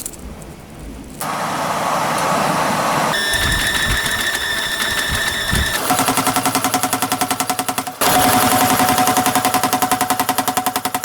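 Metalworking shop machinery running, the sound changing abruptly every couple of seconds: first a noisy rush, then a steady whine, then from about six seconds in a fast, even pounding at about seven beats a second.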